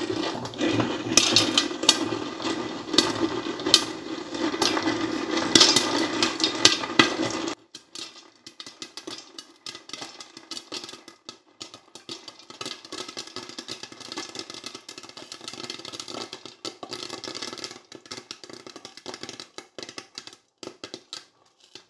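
Whirley Pop stovetop popcorn popper being hand-cranked, its gear and stirring arm rattling and clicking in the aluminium pot. About seven seconds in the sound drops abruptly to a quieter run of dense, irregular clicks.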